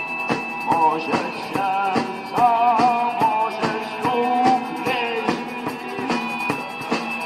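Rock music with a steady drum beat and guitar, carrying a melody that wavers in pitch.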